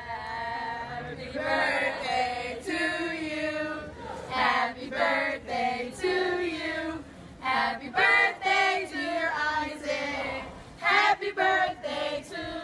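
A small group of voices singing together without accompaniment, in long held notes that glide from one to the next.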